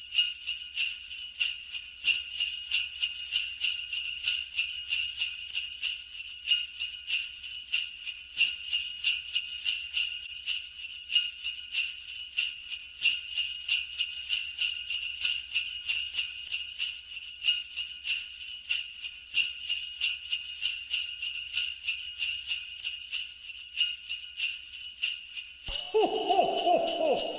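Sleigh bells shaken on their own in a steady, rapid jingling rhythm. Near the end a loud wavering pitched sound joins them, sliding down in pitch.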